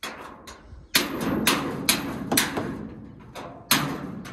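A hammer striking the metal side of a truck's cargo body: an irregular run of sharp metallic blows, several close together, each ringing briefly.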